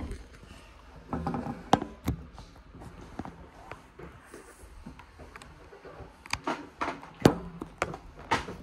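Close-up handling noise: hands tapping and knocking against a phone and a hard tabletop, several sharp separate knocks at irregular intervals.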